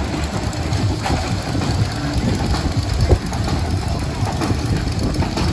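Steady low rumble of a children's roller coaster train running along its track.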